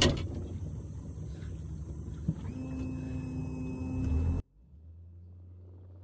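Boat's outboard motor running steadily at low speed, opening with a loud knock; a thin whine joins the low hum about two and a half seconds in, and the sound drops suddenly to a quieter hum at about four and a half seconds.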